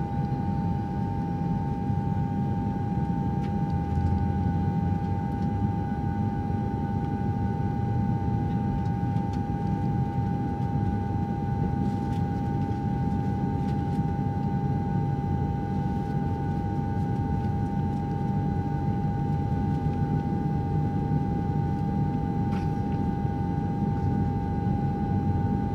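Aircraft engine running at a steady speed: a low rumble under a constant high whine, holding unchanged throughout.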